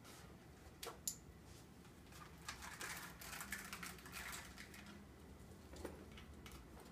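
Faint handling noise: rustling and small clicks as over-ear headphones are pulled on and settled, with a couple of sharper clicks about a second in.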